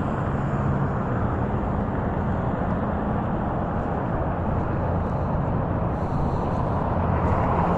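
Steady rumble of riding an electric rental scooter slowly on pavement: wheel and road noise mixed with wind on the microphone, no distinct tones or knocks.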